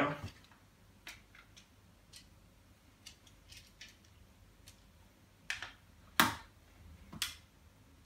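Sharp clicks and light knocks of a Wahl Senior clipper's housing being handled as its top cover is clipped back onto the body, with three louder clicks in the second half.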